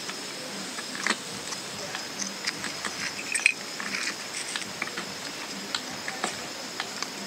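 Scattered light clicks and taps of hands handling a small carved bottle opener and its metal nail, over a faint steady hiss with a thin high whine in the background.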